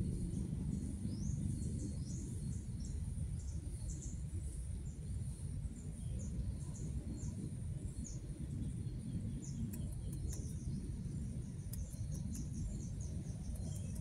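Outdoor ambience: a bird chirping repeatedly in short, quick falling notes over a steady high insect drone, with a constant low rumble underneath.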